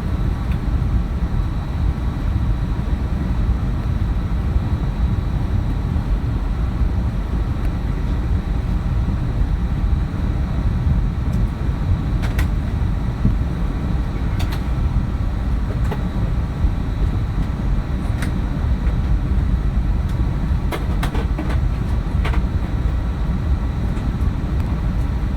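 Steady loud rumble of jet engine and airflow noise inside the cabin of an Airbus A321neo during departure, with a few faint clicks from the cabin now and then.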